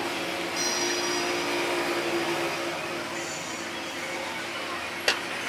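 Steady whir of a small electric motor-driven tool, with a faint high whine that fades about three seconds in, and a single sharp click near the end.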